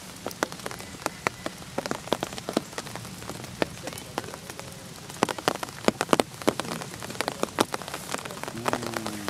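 Rain falling: a steady hiss with irregular, sharp taps of drops hitting a close surface, coming thickest about halfway through.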